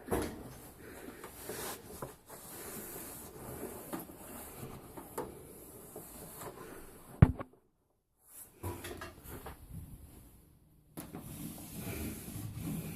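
Wiping and rubbing inside a microwave oven to clear away loosened grime after a foaming cleanser, with scattered light knocks and one sharp knock about seven seconds in. The sound drops out to dead silence twice, briefly.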